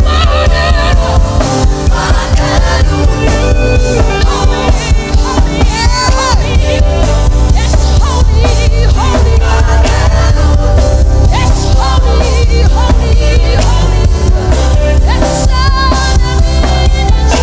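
Gospel worship song: a singing voice over a full band with a heavy bass and drums.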